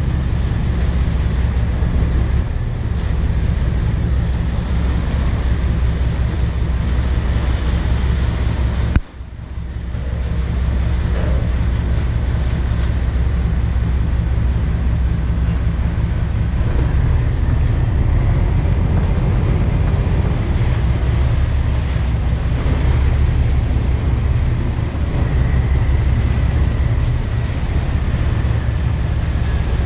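A wooden river passenger boat's engine drones steadily under way, its low hum mixed with the rush of water and wind on the microphone. About nine seconds in there is a sharp click and the sound briefly drops out before coming back.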